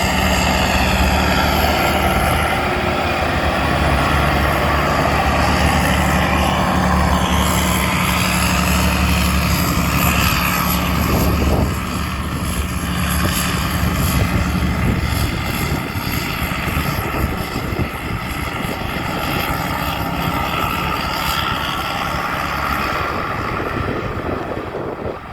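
Tamco combine harvester's Isuzu diesel engine running steadily under load, loud and droning, easing somewhat about halfway through.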